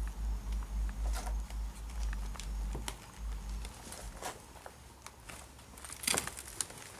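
Camera handling noise: a pulsing low rumble for about the first three seconds, then scattered small clicks and crunches, with a brief crinkling crackle about six seconds in.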